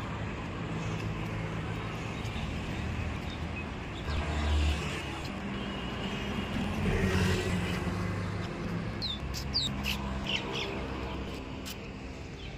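A low, steady hum of vehicle engines with swells of passing traffic, and a few short bird chirps in the second half.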